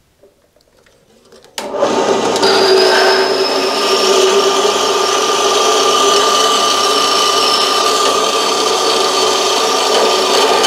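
Small horizontal metal-cutting bandsaw starts about a second and a half in and runs steadily, its blade sawing through the steel shank of an ER16 extension-rod collet chuck. The cut goes a little slower than normal for a 10 mm shank, which the machinist puts down to semi-hard steel.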